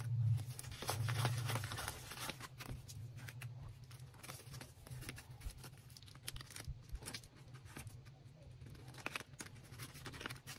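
Paper banknotes rustling and crinkling in the hands, with light taps and clicks, as bills are handled and slipped into a plastic zipper envelope in a binder.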